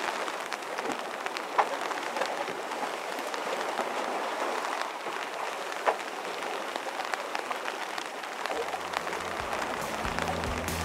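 Rain pattering on the canvas sprayhood of a sailboat under way: a steady hiss with scattered sharp drop ticks, two of them louder. Low music fades in near the end.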